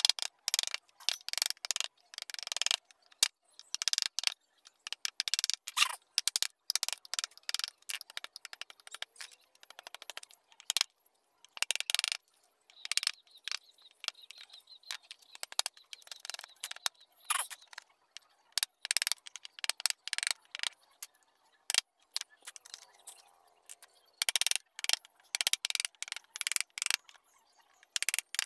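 Hand wood-carving work on a carved wooden flower: quick, irregular scraping and clicking of wood, with loose chips rattling. The strokes come in busy runs with a couple of quieter spells.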